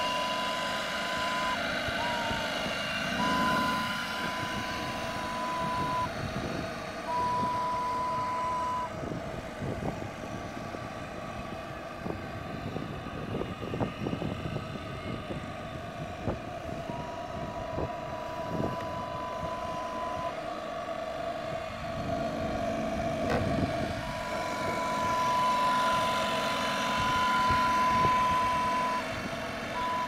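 A model steam boat's medium-size steam whistle sounding in five steady single-pitch blasts, each one to five seconds long, over the steady whir of a camera drone's propellers.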